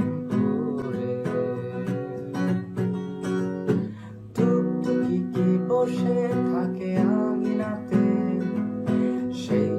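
Instrumental music led by a strummed acoustic guitar, chords struck in a steady rhythm, with a short dip about four seconds in.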